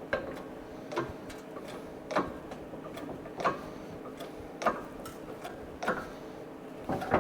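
A shop press forcing dimple dies into a sheet-metal panel, with a sharp click about every 1.2 seconds as it is worked down toward bottoming out. A steady hum runs underneath.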